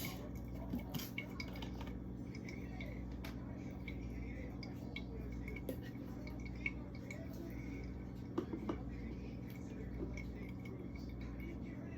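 Scattered light clicks, taps and clinks of a utensil against food containers as open containers of blue cheese are combined into one. A steady low hum runs underneath.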